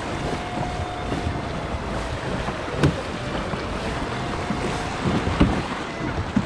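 A kayak moving fast across a lake: water rushing and splashing along the hull, with wind buffeting the microphone. A faint steady whine runs under it, and there are a couple of sharp knocks, about three seconds in and again near the end.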